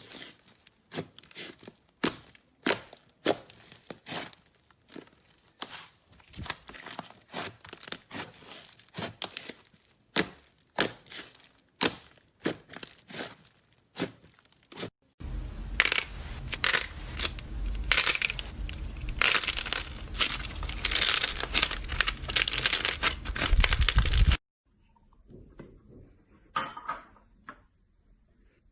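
Slime being worked by hand, giving off sharp crackling pops about one or two a second. About fifteen seconds in, a louder and denser crackling starts, then cuts off suddenly; fainter squishes follow.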